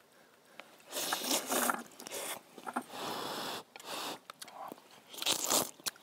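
Person slurping noodles from a bowl of kimchi noodle soup, several separate hissing slurps with chewing between; the longest slurp comes about halfway through.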